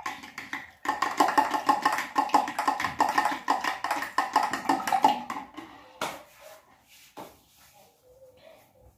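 A utensil beating eggs in a stainless steel bowl, striking the metal in a fast, even clinking of about five strokes a second. It stops about five seconds in, and a couple of single knocks follow.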